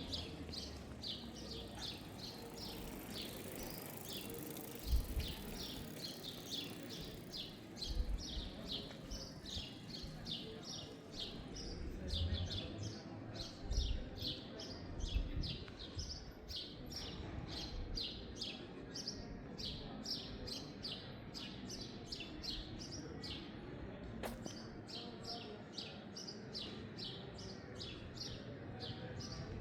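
A bird chirping over and over in a steady series of short, high chirps, about three a second, with a brief break late on. Low thumps and street ambience sit underneath.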